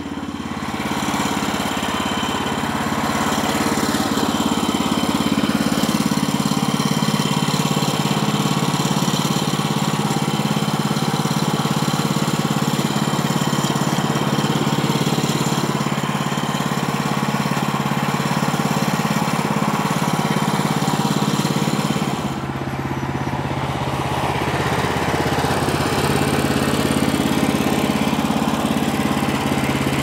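Woodland Mills HM130MAX bandsaw mill running steadily, engine and blade loud as the sawhead is pushed through a pine log. About 22 seconds in the sound dips briefly and shifts in pitch, then carries on.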